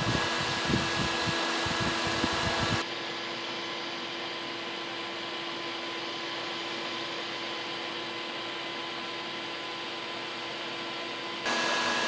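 Small AC Infinity fan running steadily, blowing air through the fins of an aluminium transmission-cooler heat exchanger: a steady whirr with a hum. There are some low irregular thumps in the first few seconds. The whirr drops in level about three seconds in and comes back up near the end.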